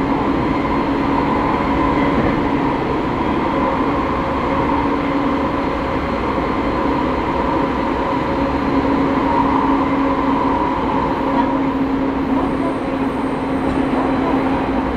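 Onboard running noise of a Rinkai Line 70-000 series electric train travelling at steady speed in a tunnel: a continuous rumble of wheels on rail with a steady hum at two pitches.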